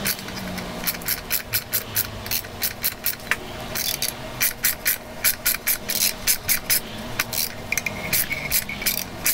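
Hand ratchet clicking in quick, uneven runs as it turns down the bolt of a valve spring compressor on a Honda K-series cylinder head. The compressor is squeezing a valve spring so that the valve keepers can be freed.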